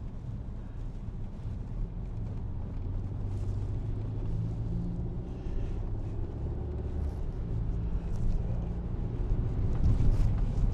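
Steady low rumble of a car's engine and tyres heard from inside the cabin while driving, with the engine hum growing stronger for several seconds in the middle.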